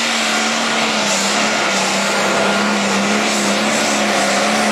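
A competition pulling engine at full throttle during a pull, running at a steady high pitch under a heavy rushing noise.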